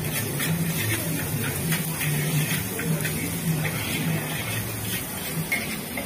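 Fried rice being stir-fried in a wok over a gas burner: a steady rushing burner flame and sizzle, with the metal spatula scraping and tapping against the wok again and again.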